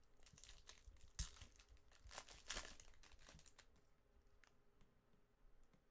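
Foil wrapper of a trading-card pack crinkling and tearing as it is ripped open by hand, faint, with sharp crackles about a second in and about two and a half seconds in, dying down after about three and a half seconds.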